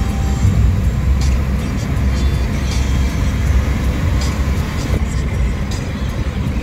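Steady road noise inside a moving car's cabin: a low rumble of tyres and engine with a haze of wind and road hiss.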